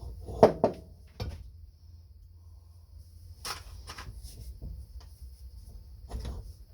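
Hand tools being handled at a bolt: a series of separate knocks and clacks, the loudest about half a second in, with more about a second in and around three and a half, four and six seconds in.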